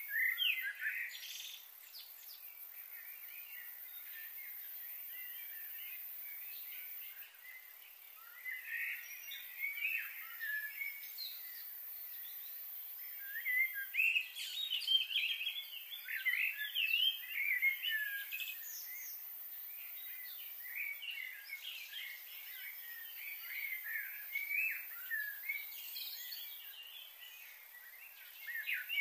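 Birds chirping and calling in busy bursts of short, quick notes, with a steady faint hiss behind them.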